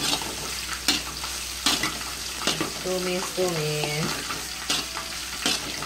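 Chopped garlic, dried squid and dried shrimp sizzling in hot oil in a wok while a spatula stirs them, the spatula scraping and knocking against the pan about once a second.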